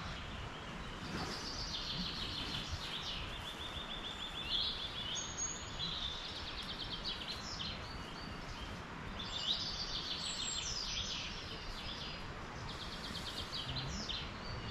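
Woodland birds singing in the morning chorus: several birds giving quick trills and rapidly repeated high notes, over a steady background rush of wind in the trees.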